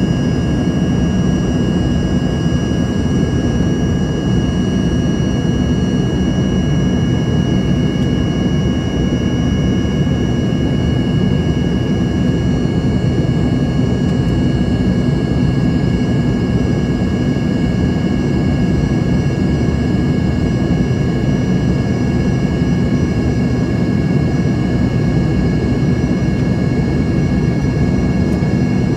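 Embraer ERJ-145's rear-mounted Rolls-Royce AE 3007 turbofans heard from inside the cabin: a steady low rumble with several high, steady whining tones over it, holding level without change.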